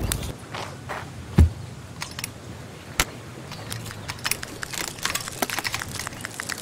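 A spade bit boring into a wooden log stump, with scattered sharp clicks and crunches of wood that grow denser in the second half. There is a heavy thump about a second and a half in and a single sharp snap near the middle.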